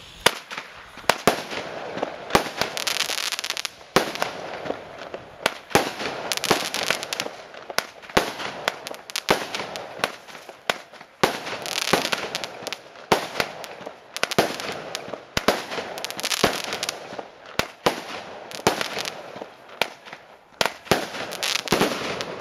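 Fireworks going off in a long, continuous run: irregular sharp bangs, roughly two a second, over steady crackling and hissing.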